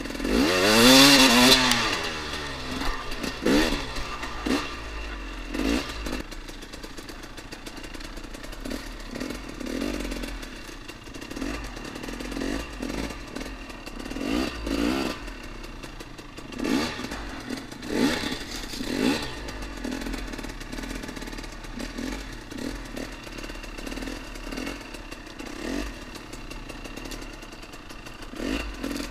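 Dirt bike engine revving in short repeated bursts, its pitch rising and falling with each blip of the throttle, with one hard rev about a second in as the loudest moment.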